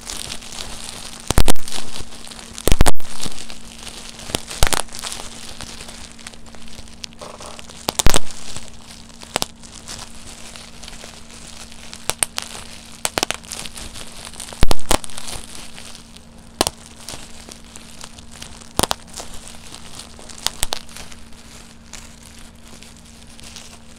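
Plastic bubble wrap being squeezed and twisted by hand: sharp single pops as bubbles burst, irregularly every one to three seconds, with the sheet crinkling between them.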